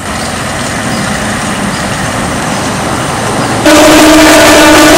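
Road noise from a vehicle on a road, then suddenly much louder: a passenger train passing with its horn sounding a steady blast.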